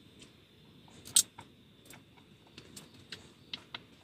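Silicone POP IT fidget toy bubbles being pressed, giving scattered short clicks and pops; one sharp pop about a second in is much louder than the rest.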